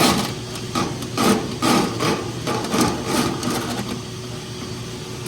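Duct-cleaning brush scraping inside a sheet-metal HVAC trunk line in repeated strokes, about two to three a second, over a steady machine hum; the scraping eases off after about three and a half seconds.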